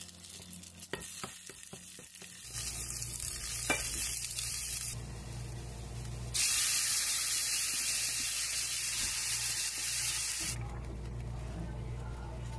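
Garlic and minced meat sizzling in hot oil in a stainless steel pan, stirred with a wooden spoon. The sizzle sets in a couple of seconds in, is loudest from about six to ten seconds in, then drops back.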